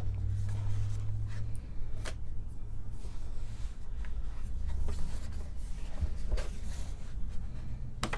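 Cardboard lid of a two-piece box being slid off, then a leather-bound Bible handled and lifted out onto carpet: scratchy rubbing and rustling with a few sharp clicks.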